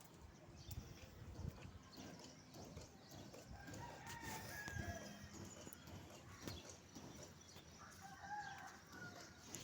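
Faint distant bird calls, one about four seconds in and another about eight seconds in, over low background noise with a few faint knocks.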